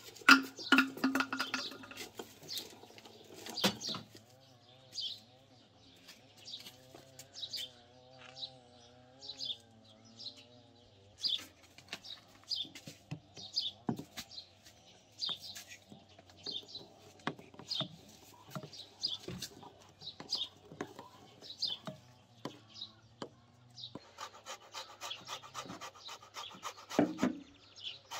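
A metal spoon clinks and scrapes in a ceramic bowl as flour is stirred, while a small bird chirps over and over at an even pace. About four seconds from the end, a tangerine is rubbed on a metal box grater, giving a rasping scrape.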